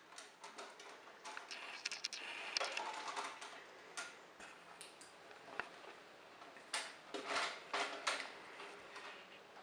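Irregular plastic clicks and rattling scrapes from a kitten pawing at the disc and mechanism of an opened CD-ROM drive, busiest twice: about two seconds in and again about seven seconds in.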